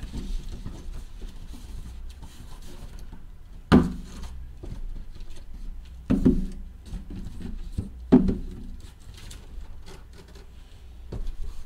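Shrink-wrapped cardboard hobby boxes of trading cards being slid out of a cardboard case and set down, with rubbing and rustling of plastic wrap against cardboard and three sharp thuds as boxes are put down, about two seconds apart.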